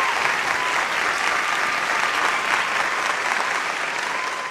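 Large live audience applauding, with whistles over the clapping.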